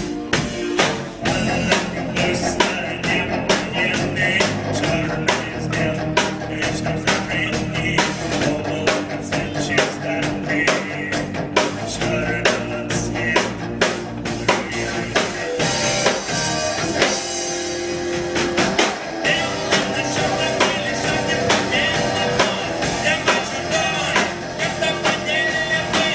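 Live rock band playing an instrumental passage: a drum kit keeps a steady beat under electric bass guitar and keyboard.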